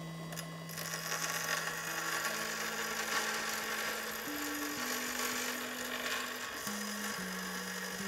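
Bench grinder grinding a steel piece of an old door lock, a steady harsh hiss of metal against the wheel starting about a second in.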